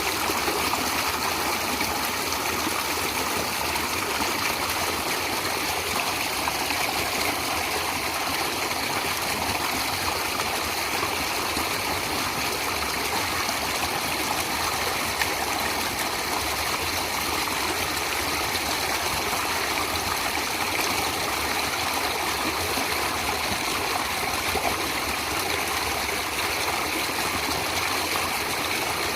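Natural running water, a stream flowing steadily without a break.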